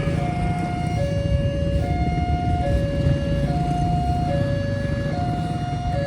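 Railway level-crossing barrier alarm sounding a two-tone hi-lo warning: a higher tone and a lower tone alternate, each held a little under a second, repeating steadily. This is the warning that a train is approaching and the crossing barrier is closing or closed. A steady low rumble lies under it.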